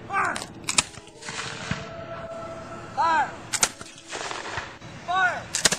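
Flintlock muskets firing: three pairs of sharp reports, the shots in each pair about half a second apart and the pairs two to three seconds apart.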